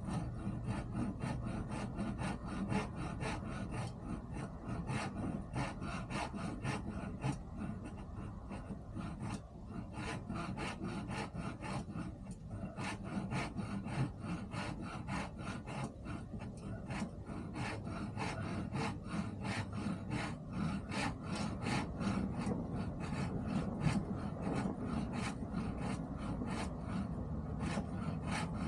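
Hand saw cutting through wood in steady back-and-forth strokes, about two to three a second, with a brief pause about twelve seconds in.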